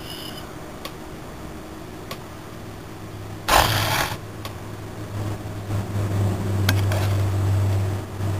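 Small clicks and handling noise from prying the ribbon-cable connectors off an iPhone 3GS logic board, with one loud rustling burst about three and a half seconds in. A steady low hum sets in with that burst and runs on.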